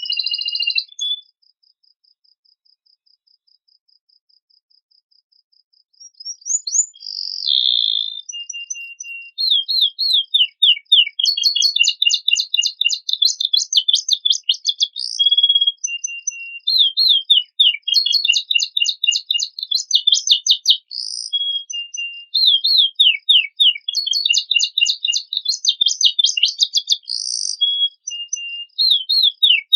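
Domestic canary singing a fast song of rapid trills and chirps, filled with phrases borrowed from other birds. The song cuts off about a second in and starts again about six seconds in. A faint, fast, high-pitched pulsing runs underneath.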